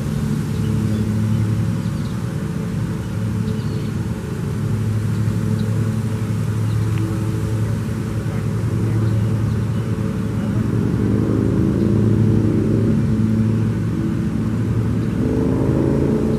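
A car driving, engine and road noise steady, with the engine note rising as it accelerates about ten seconds in and again near the end.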